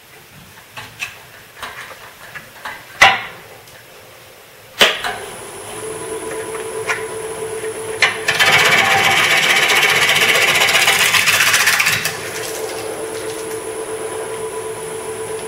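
A few knocks and clatters of tools being handled, then a wood lathe switched on about five seconds in, its motor settling into a steady hum with a whine. From about eight to twelve seconds a loud, harsh rushing noise rides over the hum: a bowl gouge cutting into the spinning ash bowl blank.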